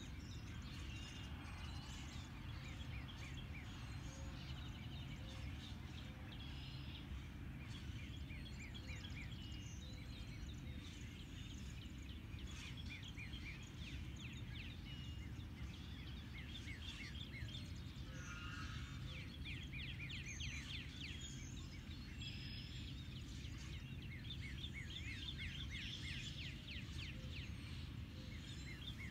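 Several songbirds calling at once, an early-spring mix of repeated chirps and quick trills throughout, over a steady low hum.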